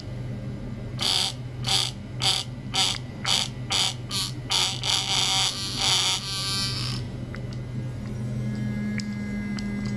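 Electric toothbrush buzzing in a string of short pulses, about two a second, then steadily for a moment before it switches off about seven seconds in. A steady low hum runs underneath.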